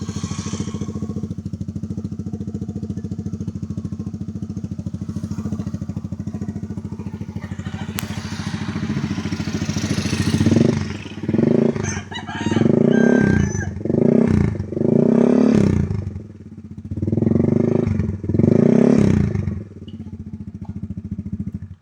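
Yamaha Mio Soul I scooter's stock 113cc single-cylinder four-stroke engine running through an EXOS R5 aftermarket exhaust pipe: a steady idle, then a series of short throttle blips, each revving up and dropping back, before it settles to idle again.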